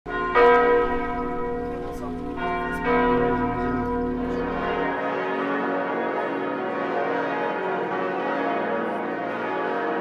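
Chartres Cathedral's bells tolling, two strong strokes with long ringing decay. About halfway through it changes to Strasbourg Cathedral's bells ringing together in a dense, steady peal.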